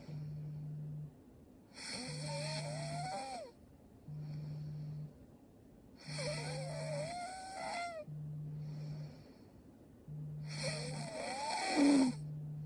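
A sleeping woman snoring in a regular rhythm. About every four seconds comes a loud breath with a wavering, whistle-like note, with a low steady hum between breaths; the last breath, near the end, is the loudest.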